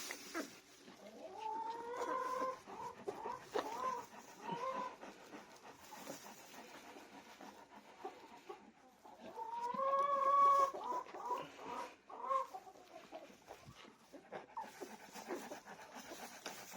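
High-pitched animal calls in two bouts, about a second in and again about ten seconds in, each a run of short rising and falling notes.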